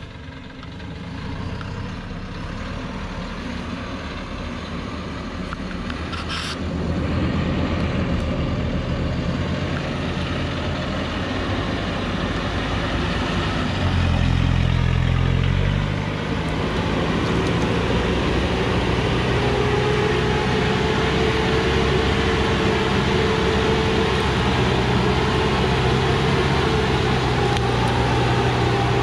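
Diesel engine of a loaded Thaco Forland truck labouring up a steep dirt track, growing louder as it approaches. About halfway the engine note drops briefly, then settles into a steady pull with a faint whine over it.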